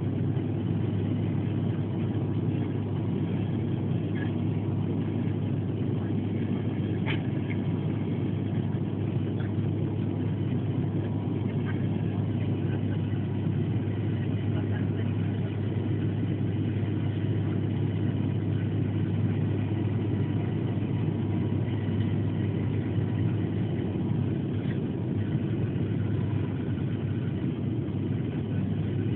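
Steady low drone of a turboprop airliner's engines and propellers heard inside the passenger cabin on final approach, landing gear down.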